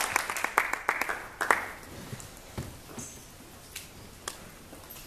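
Audience applause dying away over the first second and a half, then a few scattered single claps and small knocks in a quiet hall.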